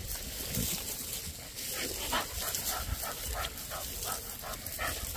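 Dog panting in short, even breaths, about three a second.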